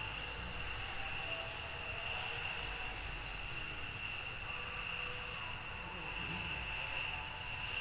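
F-15DJ Eagle's twin turbofan jet engines at taxi power, a steady high-pitched whine over a low rumble as the fighter rolls along the taxiway.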